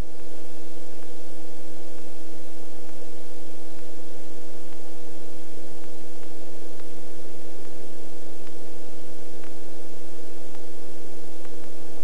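Small helicopter in low-level flight, heard from inside the cockpit: a steady, even rushing noise with a steady hum of several low tones underneath.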